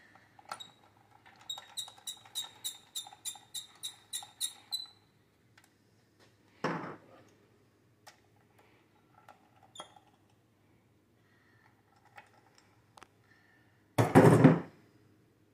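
Socket ratchet clicking in a quick, even run, about three to four clicks a second for a few seconds, while a connecting rod cap bolt on a Honda D16A6 engine is turned. About halfway there is a short louder clunk, and near the end a longer, louder metallic clatter.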